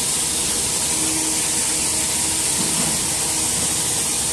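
Hightex S700 hot-air tape welding machine running, its hot-air blower giving a steady hiss, with a faint hum underneath.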